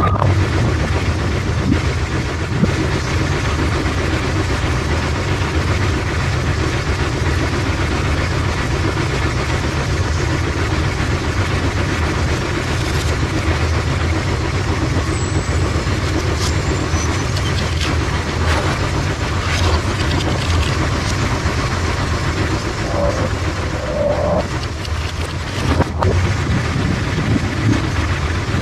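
Automatic bowling pinsetter running with a steady low mechanical rumble. Pins clatter as a ball strikes them near the start, and the sweep and spotting deck knock now and then as the machine cycles.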